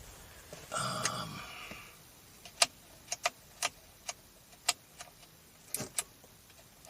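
Sharp plastic clicks of a Mazda6's overhead-console map-light switches being pressed, about nine single clicks at uneven spacing. A brief tone fades out about a second in.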